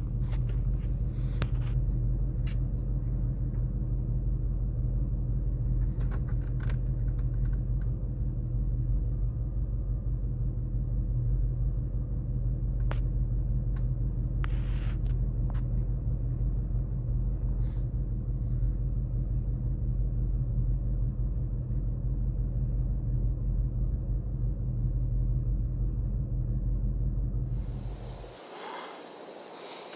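Steady low rumble of a vehicle being driven, heard from inside the cabin, with scattered small clicks and rattles. Near the end it cuts off to a much quieter sound with a faint high whine.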